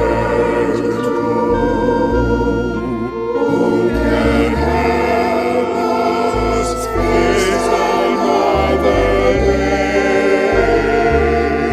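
A women's church choir singing a slow hymn in long held notes, accompanied by organ with sustained low bass notes.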